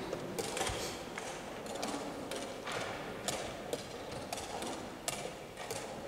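Tournament playing-hall ambience: scattered sharp clicks and taps, typical of chess pieces being set down and clocks being pressed at nearby boards, over a low steady room noise.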